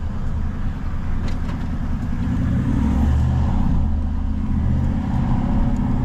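Four-wheel drive's engine running steadily as it drives along a tight bush track, the low rumble swelling a little midway, with a few light knocks.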